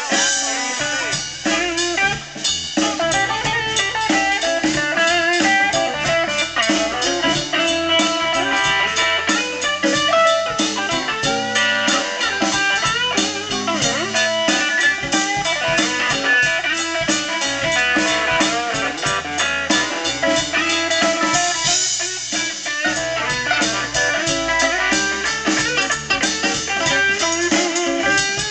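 Blues band playing an instrumental passage without vocals: plucked strings leading over bass and drum kit keeping a steady beat.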